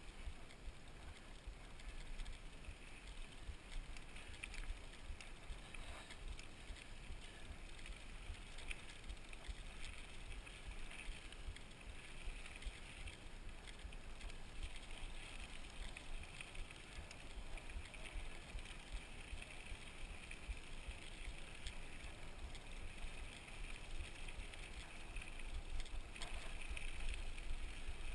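Mountain bike rolling along a dirt trail: constant low tyre rumble and wind on the camera microphone, with a steady high hiss, a little louder near the end.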